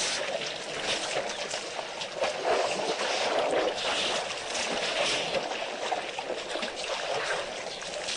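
Shallow water splashing and trickling around an elephant calf's feet as it steps in the muddy edge of a waterhole, an irregular wet sloshing with many small clicks.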